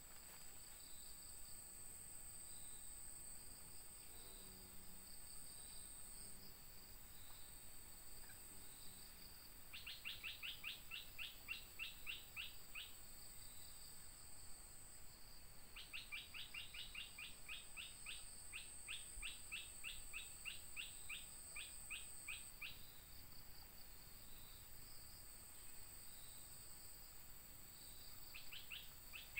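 Faint natural ambience: a steady high insect whine with a soft pulse about once a second. Twice it is joined by a rapid run of sharp bird notes, about five a second, lasting a few seconds each time, with a short run again near the end.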